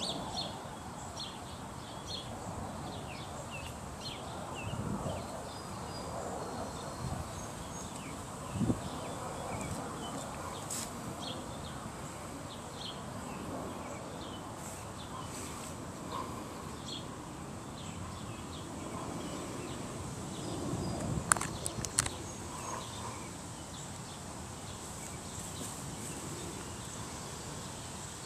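Outdoor garden ambience: small birds chirping on and off over a faint steady high tone. There is a single thud about a third of the way in and a few sharp clicks about three quarters through.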